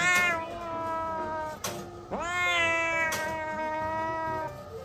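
A kitten meowing in distress while restrained for a blood draw from its foreleg: two long drawn-out meows, each about two seconds, the second starting about two seconds in, each rising sharply in pitch at the start and then held.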